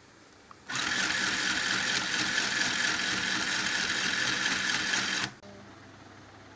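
Portable mini electric sewing machine running at a steady speed for about four and a half seconds, starting just after a small click and stopping abruptly.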